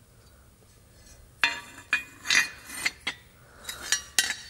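Metal sway bar mount brackets from an FD RX-7 clinking and clattering against each other and the concrete floor as they are handled and set down. It is a string of about eight short, ringing metallic knocks that starts about a second and a half in.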